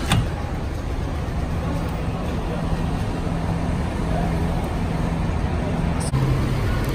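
A stainless-steel commercial microwave oven's door latch clicks open, followed by a steady low hum of road traffic.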